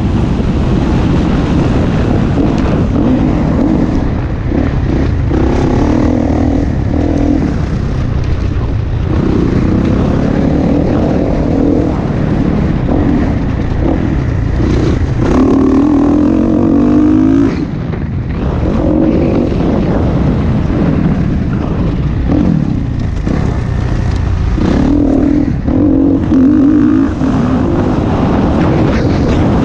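Motocross dirt bike engine running hard at race pace, its note swelling and easing as the rider opens and closes the throttle through the corners and straights, with a brief drop in the engine sound about two-thirds of the way through, over a steady rush of wind and tyre noise.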